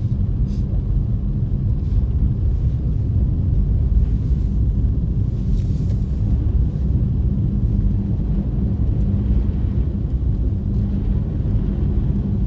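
Steady low rumble of a car driving on a slippery, snow-covered road, heard from inside the cabin: engine and tyre noise.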